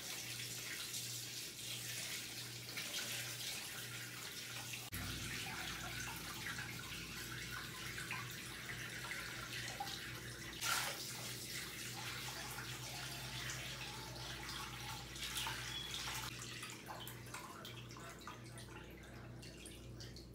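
Tap water poured from a plastic pitcher, splashing into a half-drained aquarium as the tank is refilled after a water change, with a low steady hum underneath.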